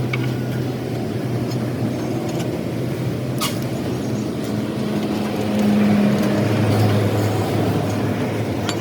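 A vehicle engine running with a steady low hum that grows louder past the middle, with one sharp click a little over three seconds in.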